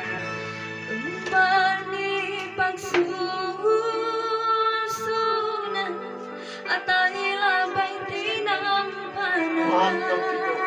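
A woman singing into a handheld microphone over instrumental backing music, her voice wavering with vibrato on long held notes.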